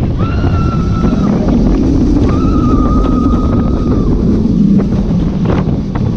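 Bolliger & Mabillard wing coaster train running at speed, a steady rush of wind and track rumble on the ride camera. Riders scream twice, long held high screams near the start and about two seconds in, and a few sharp knocks sound near the end.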